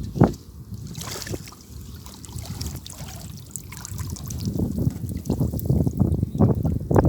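Water splashing and trickling in irregular splashes, busier and louder near the end.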